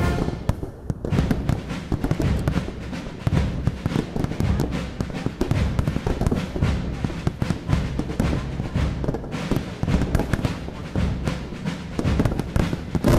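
Fireworks salute shells bursting in rapid, overlapping succession: a dense run of booms mixed with crackling.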